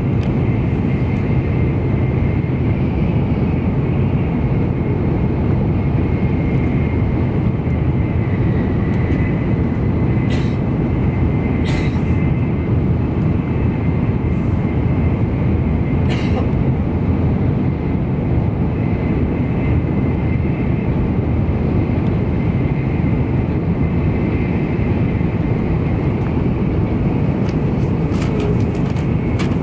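Cabin running noise of an N700 series Shinkansen at speed, heard from inside the passenger car. A steady low rumble carries a faint high steady tone, and a few brief clicks come through.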